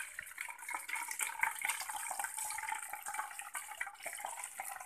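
Lemon-curdled milk poured in a thin stream from a metal pot into a cloth strainer: the whey splashes and trickles onto the curds and cloth as the chhena is separated from the whey.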